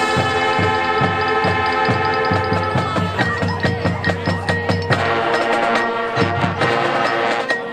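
Marching band playing: brass holding sustained chords over a steady drum beat, the harmony shifting about three seconds in and swelling fuller about five seconds in.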